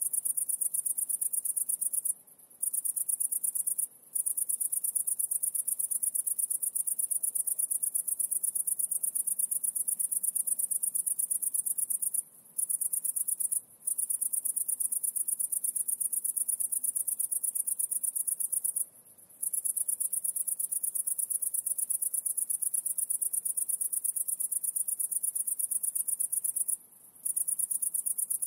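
A high-pitched, rapidly pulsing insect-like trill that goes on steadily and stops briefly six times.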